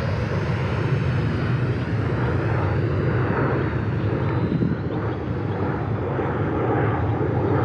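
A micro RC warbird's small electric motor and propeller whining faintly as the plane flies in on its landing approach, the pitch slowly wavering. A steady low rumble runs under it and is the loudest part.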